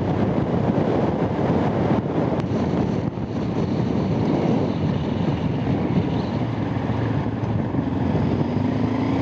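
Honda Transalp motorcycle on the move: the V-twin engine running under a steady rush of wind and road noise, with the engine note rising near the end.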